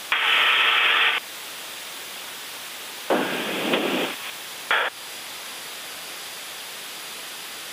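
Bursts of radio static over the cockpit radio: a loud hiss for about a second at the start, another about three seconds in and a short one near five seconds, over a steady low hiss.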